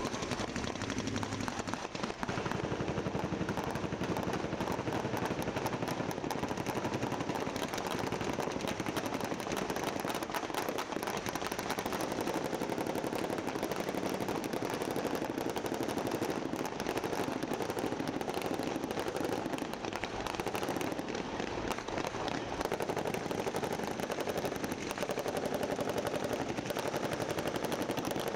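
Sustained rapid gunfire from infantry automatic rifles and machine guns firing blanks, many shots overlapping without a pause.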